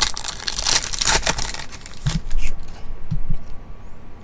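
Foil trading-card pack wrapper being torn open and crinkled by hand, loudest over the first second and a half, then quieter rustling as the cards are handled.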